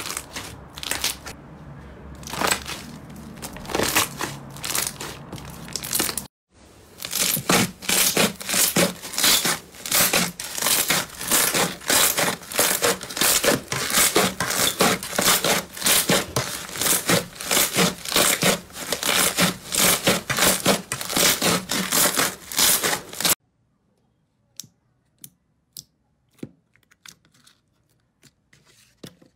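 Hands kneading and squeezing slime, giving a dense run of sticky crackling and popping clicks, many a second. About 23 seconds in it drops to a few faint clicks as soft slime is poked.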